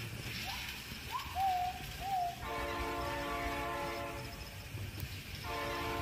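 Rail King toy train set's electronic horn sound: a steady, buzzy horn tone held for about two seconds, sounding again near the end. A few short whistle-like chirps that rise and fall come just before it.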